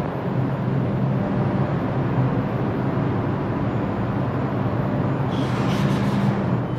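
R142 subway train moving through the station: a steady rumble of wheels on rail with a low motor hum. A brief high hiss comes in about five and a half seconds in.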